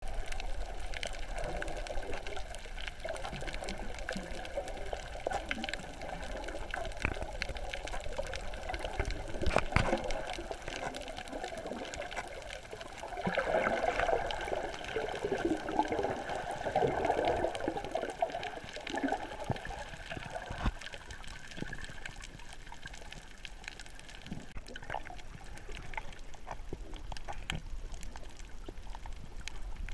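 Water bubbling and gurgling heard underwater, with scattered clicks and a louder, fluttering stretch of bubbling from about 13 to 20 seconds in.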